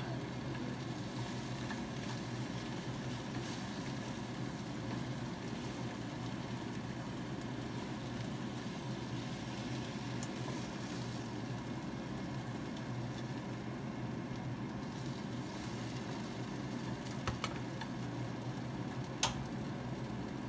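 Steady low mechanical hum, with two short sharp clicks near the end.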